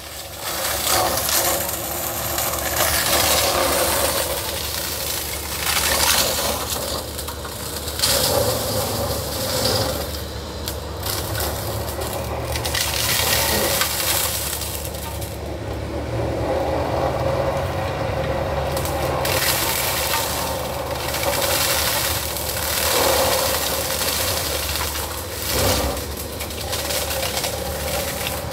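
Volvo compact excavator with a boom-mounted flail mower head shredding bamboo and brush: repeated cracking and crunching over the steady drone of the engine and the spinning cutter. The din swells and eases as the head bites into the growth.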